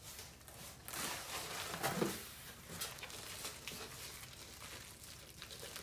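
Packing material rustling and crinkling as it is handled and pulled out of a cardboard box, with a few light knocks.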